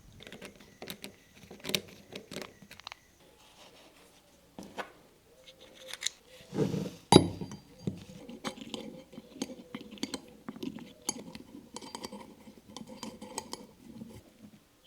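Irregular clicks and clinks of small hard parts being handled, with a louder burst of clatter about seven seconds in.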